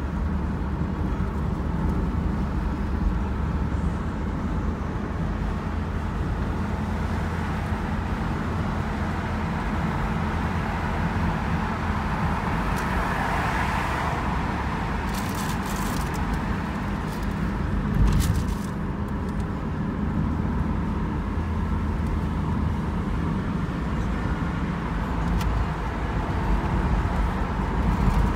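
Car driving along a freeway: steady engine and tyre rumble. There is a brief swell of rushing noise near the middle and a single thump about two-thirds of the way through.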